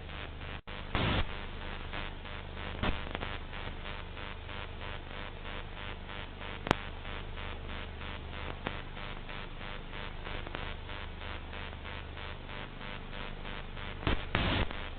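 Off-air television static: a steady hiss over a low mains hum, with a brief dropout under a second in. Louder crackles come about a second in and near three seconds, a single sharp click near the middle, and a burst of crackle near the end.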